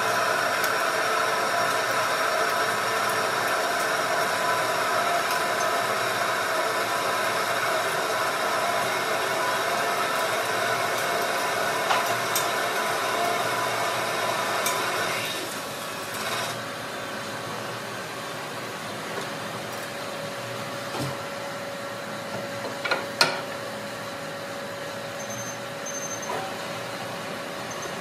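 Metal lathe turning a part with coolant spraying: a steady cutting noise that drops to a quieter, steady spindle run about halfway through, with a couple of sharp clicks later on.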